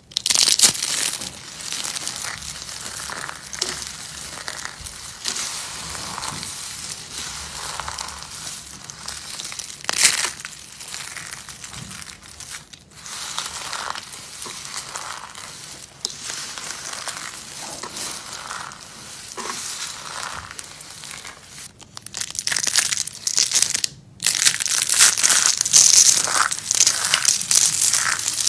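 Soap being crushed and crumbled: a dense, continuous crunching and crackling, with a few brief breaks. It grows louder and sharper over the last six seconds or so.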